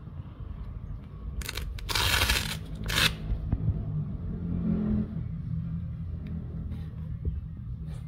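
Hook-and-loop (Velcro) patch being ripped off a pouch's loop panel: three quick tearing rips about a second and a half in, the middle one the longest, over a low steady rumble.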